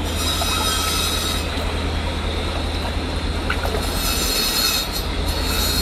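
A fast river rushing over stones. A high, thin squealing tone rides over it, strongest in the first second and a half and again from about four seconds in.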